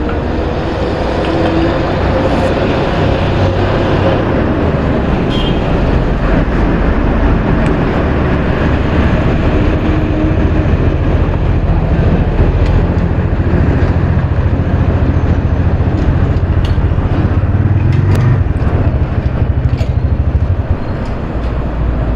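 Petrol-station fuel dispenser running while petrol is pumped through the nozzle into a motorcycle's tank, a steady low hum that stops shortly before the end as the fill finishes.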